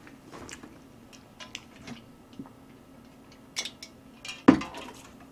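Scattered light clicks and clinks of chopsticks and dishes being handled at the table, with one sharper knock about four and a half seconds in, over a faint steady hum.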